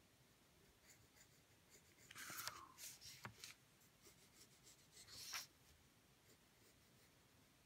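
Faint scratching of a Dixon Ticonderoga pencil tracing lines on drawing paper, with two louder rubbing swishes about two and five seconds in as the sheet is slid and turned on the desk.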